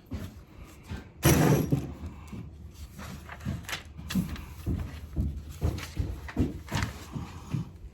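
Scattered knocks and light clatter of hard parts being handled, with one louder clunk a little over a second in.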